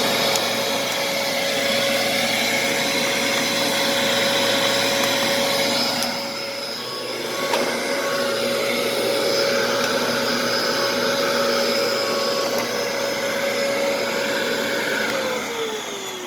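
Hoover vacuum cleaner running steadily, its motor whine sliding down in pitch near the end as it winds down. It runs but no longer sucks, which the owner puts down to a clog in the hose or brush mechanism.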